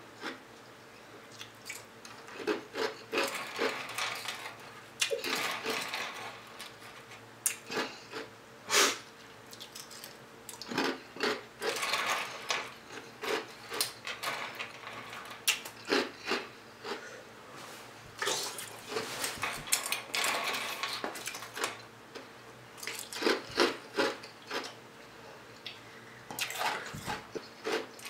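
Ice being crunched and chewed mouthful by mouthful, in irregular crisp crackling bursts, with a plastic spoon scooping ice in a cup.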